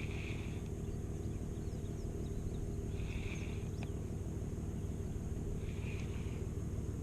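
Outdoor ambience: a steady low rumble, with a short buzzy call repeating about every three seconds and a few faint bird chirps over it.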